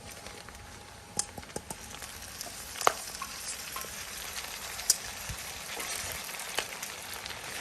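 Potato slices and pork belly sizzling in hot oil in a pan, stirred with a spatula that clicks sharply against the pan now and then. The sizzle grows a little louder toward the end.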